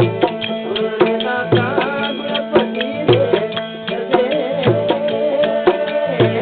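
Indian devotional bhajan music: a hand drum beats a steady rhythm with a deep stroke about twice a second, under a wavering melody and a sustained drone.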